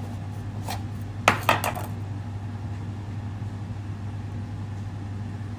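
Metal kitchen utensils clinking against dishware: one light tap a little under a second in, then a quick cluster of clinks about a second and a half in, over a steady low hum.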